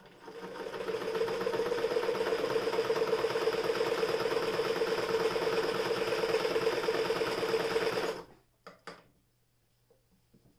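Frister & Rossmann Model 45 electric sewing machine stitching through denim: it speeds up over about the first second, runs steadily for about eight seconds, then stops suddenly. A couple of short clicks follow just after it stops.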